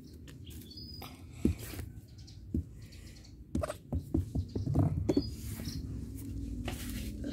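Wire cage clinking and rattling in a string of sharp knocks, thickest between about three and a half and five seconds in, as a young macaque grips and climbs the bars.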